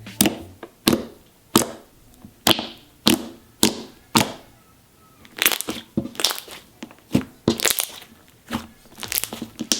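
Glue-and-borax slime being stirred in a bowl as it thickens, giving sticky, irregular clicks and pops about twice a second.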